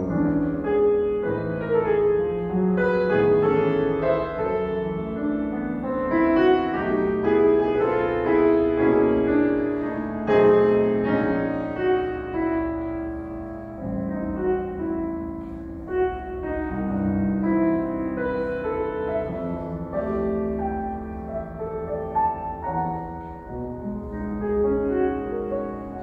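Solo grand piano playing a classical piece, dense passages of many notes and chords that grow softer in places.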